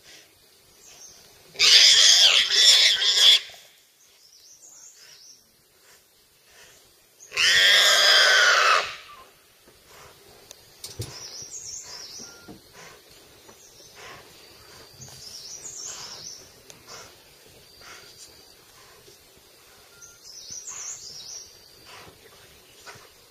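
Wild boar squealing loudly twice, each shrill cry lasting one to two seconds with about five seconds between them, the distress squeals of a boar under a tiger's attack. Afterwards a bird chirps faintly every couple of seconds.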